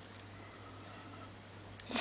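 Quiet room tone with a faint, steady low hum and no distinct handling sounds.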